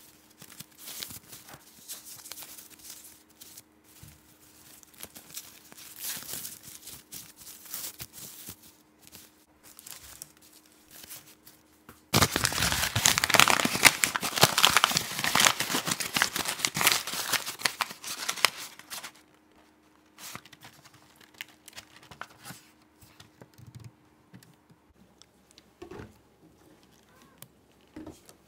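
Packaging crinkling and rustling as it is handled, with a loud burst of dense crinkling lasting about seven seconds in the middle.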